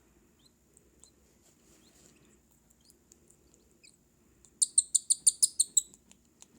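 Baby cockatiel chick giving a quick run of about ten high chirps, some eight a second, for just over a second near the end. This is the food-begging call of a chick being hand fed from a syringe. Faint soft ticks come before it.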